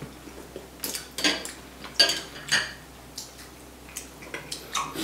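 Spoon and chopsticks clinking against ceramic soup bowls while eating: a handful of short, light clinks spread through, some with a brief high ring.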